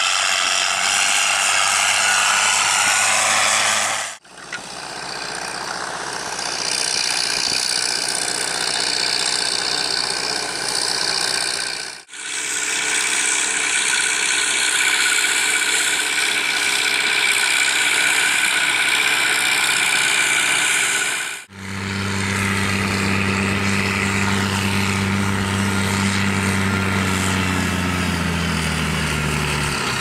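Diesel tractor engines working in the field, heard in several short clips one after another: a New Holland pulling a harrow, a red tractor towing a slurry tanker, and a New Holland towing a slurry tanker. In the last clip the engine note drops near the end.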